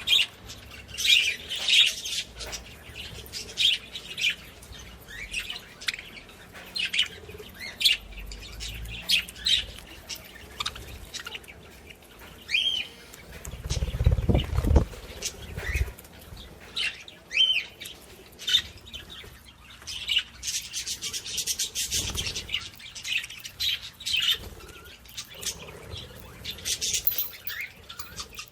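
Pet birds chirping and tweeting in many short high chirps. There are small clicks throughout and a burst of low rumbling noise about halfway through.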